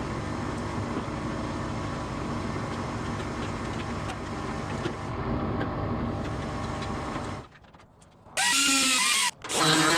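Electric power tool running steadily, a motor whine over grinding noise, stopping about seven and a half seconds in; then two short, loud bursts of a sound whose pitch bends near the end.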